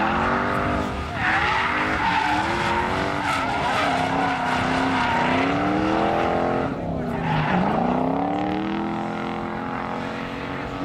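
Drift car engine revving hard, its pitch rising and falling with the throttle, over continuous tyre squeal as the car slides sideways through the corners on smoking tyres. About seven seconds in the revs drop away and then climb again.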